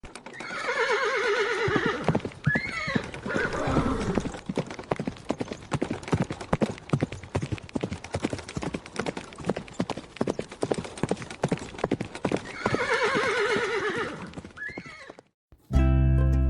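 A horse whinnies and snorts, then its hooves clip-clop in a steady rhythm for several seconds, and it whinnies and snorts again. Light plucked-string music starts just before the end.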